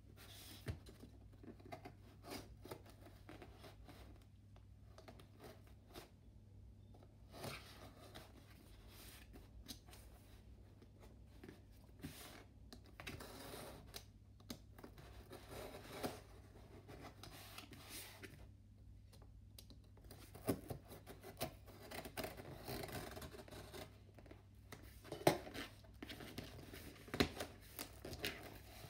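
A utility knife scores and scrapes through packing tape along the seams of a cardboard box, with tape tearing and cardboard rustling as the box is worked open. There are scattered sharp taps and knocks, the loudest in the second half.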